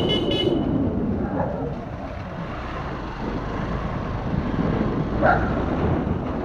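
Steady rushing wind and road noise from a ride along a lane, with a brief high ringing chirp in three quick pulses right at the start.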